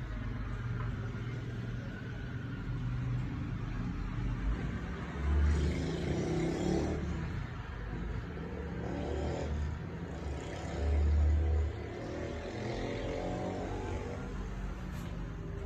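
Muffled road traffic from outside, with vehicles swelling and fading as they pass, over a low rumble and a few heavier low thumps.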